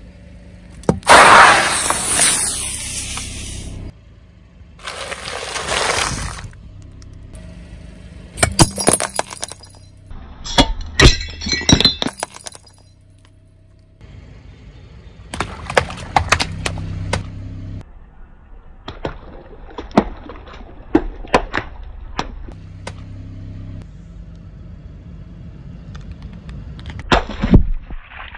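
A car tyre crushing things. A pressurised Glade air-freshener aerosol can bursts about a second in, with a loud hiss of escaping spray lasting about three seconds, and a second, shorter hiss follows. Then come sharp cracks and crunches, and later water balloons bursting under the tyre with splashes.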